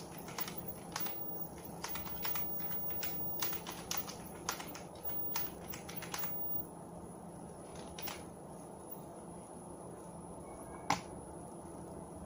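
Typing on a computer keyboard: a quick, irregular run of key clicks over the first six seconds or so, then a few scattered clicks, with one sharper click near the end. A faint steady hum sits underneath.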